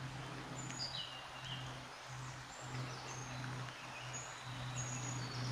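Woodland birds singing faintly, short high whistles and trills scattered throughout, over a low steady hum.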